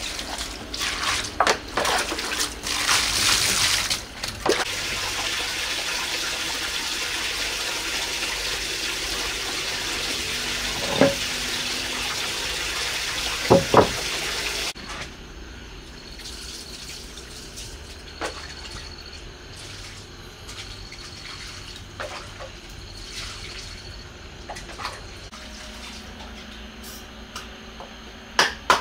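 Water gushing steadily from an open pipe into a plastic basin, with a couple of sharp knocks. About halfway through the sound cuts off suddenly, leaving a quieter stretch of small clicks and splashes.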